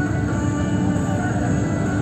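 Music playing on the bus's radio over the steady low rumble of the bus running.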